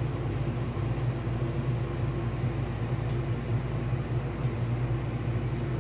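Hampton Bay Windward II 54-inch ceiling fan running in reverse at a slower speed: a steady low hum with air noise, and a few faint high ticks.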